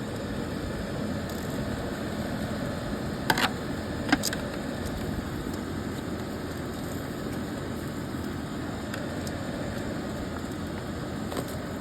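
A steady, even rumble with two short sharp clicks, about three and four seconds in.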